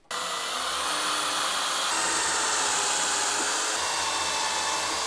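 Cordless drill boring a locating hole through a UJK Parf Guide rail hole into the wooden workbench top. It starts suddenly and runs at a steady speed, with a faint whine that shifts slightly in pitch as it cuts.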